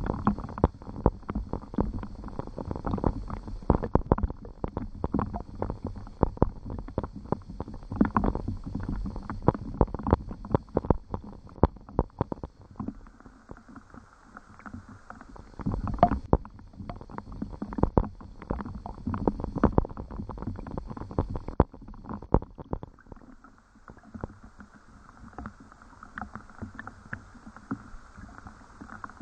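Rain with many close drops and drips tapping and knocking irregularly near the microphone over a steady rain hiss. The drips grow sparser about twenty seconds in.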